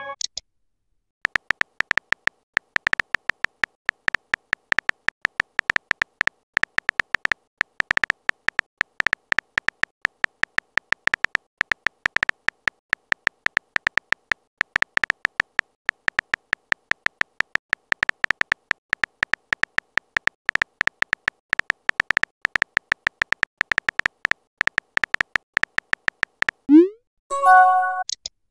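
Rapid clicks of a phone keyboard typing sound effect, many per second, each with a faint high tone. Near the end a short message-sent chime with a rising swoop.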